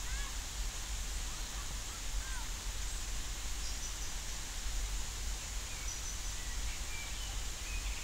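Steady rain falling on a lake, with a few faint, short bird calls near the start and around two seconds in.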